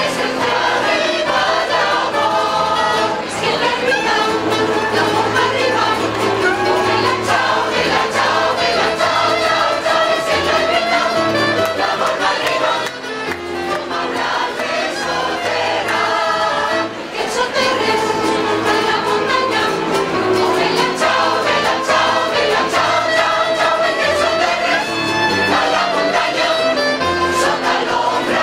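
Mixed choir of men and women singing together, with instrumental accompaniment and a steady bass line under the voices.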